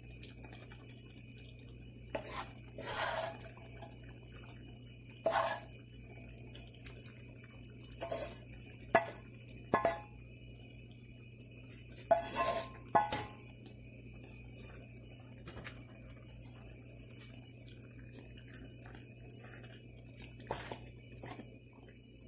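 A wooden spatula knocks and scrapes now and then against a kadai as paneer cubes are tipped into thick simmering gravy and stirred in. The knocks come as scattered single strikes, the sharpest a little over halfway through, over a steady low hum.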